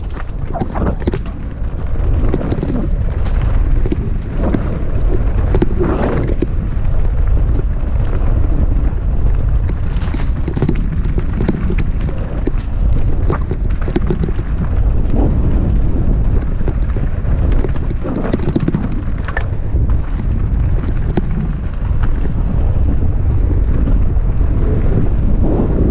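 Heavy wind rumble on the microphone of a camera moving fast along a dirt singletrack, with scattered clicks and rattles on top.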